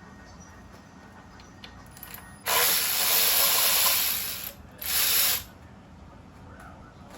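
Power ratchet running in two bursts, a long one of about two seconds and then a short one, spinning bolts out.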